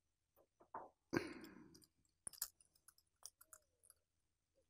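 Faint small clicks of steel fishing pliers and a swivel being handled against the screw eye of a plastic propeller lure, with one louder short burst of noise about a second in.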